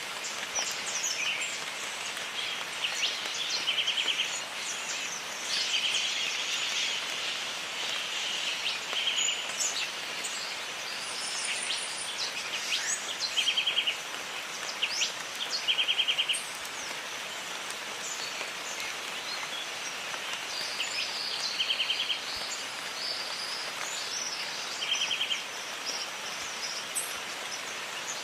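Steady rain with birds calling over it, among them a short, rapid trill repeated every few seconds, and scattered higher chirps.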